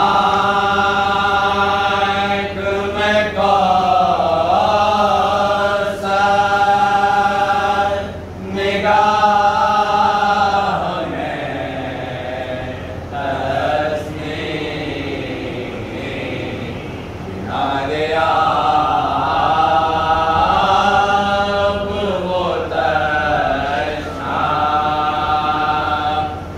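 A man's voice chanting a ziyarat (devotional salutation) in long, held, wavering notes, phrase after phrase with short breaths between.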